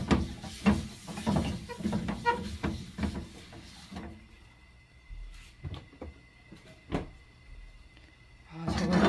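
A wad of paper towel rubbed in quick strokes around the inside of a non-stick frying pan, about two or three wipes a second, stopping about four seconds in. A few light clicks follow.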